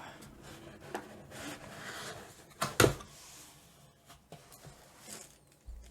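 Cardboard product box being opened and handled, with soft rustling and one sharp knock about three seconds in.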